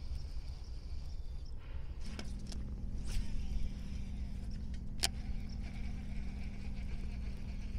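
Baitcasting reel being cranked in a steady retrieve, a low even gear hum starting about two seconds in, with two sharp clicks along the way.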